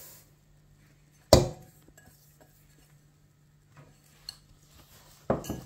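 A glass mixing bowl knocks sharply once against a metal cooking pot about a second in, with a short ring, as sugar is tipped out of it. A few faint clicks follow, then a short clatter of kitchenware near the end.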